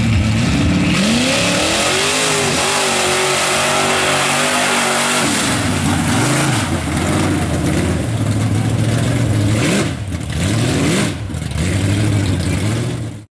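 A lifted square-body Chevrolet mud truck's engine revving hard as it launches and runs through a mud pit. The engine note climbs over the first few seconds, then surges up and down repeatedly as the throttle is worked, and cuts off abruptly near the end.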